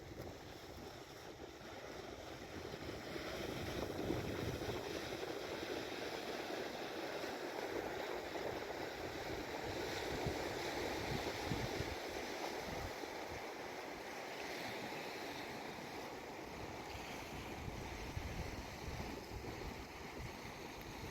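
Floodwater rushing steadily, with wind buffeting the microphone.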